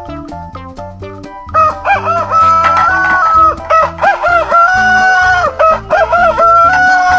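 Background music: a plucked bass line, joined about a second and a half in by a loud lead of chicken-like clucking and crowing notes, held and bending in pitch, over the beat.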